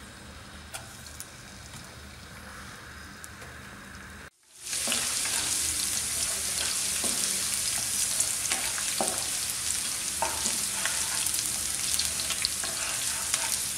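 Chopped garlic and ginger sizzling in hot oil in a nonstick wok, with a spatula stirring and scraping. The hiss is faint for the first few seconds, then after a brief break it is loud and steady, peppered with crackles and clicks.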